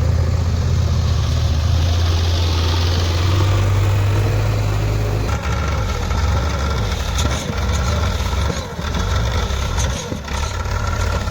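A heavy diesel engine running steadily. Its note changes about five seconds in, and a steady whine and scattered clicks come in with it.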